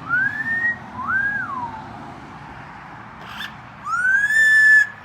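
A parrot whistling a two-part call like a wolf whistle: a rising note, then a note that rises and falls. It comes once early on and starts again near the end.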